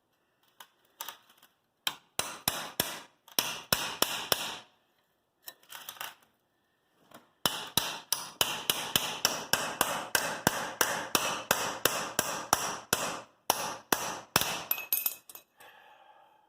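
Small hammer striking a steel cold chisel over and over, a run of sharp metallic taps in short bursts and then a long steady stretch at about three blows a second, driving the chisel like a wedge into a seam to split it apart.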